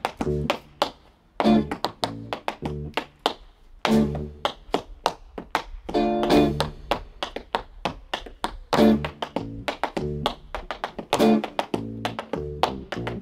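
Tap dancing on a portable tap board: quick tap-shoe clicks over a jazz band's guitar and bass, which come in with short phrases about every two and a half seconds while the taps fill the gaps.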